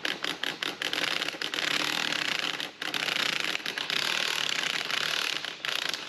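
Cordless power tool working a bolt through the wooden bridge deck, triggered in several short stabs and then run on with a brief break near the middle, stopping just before the end.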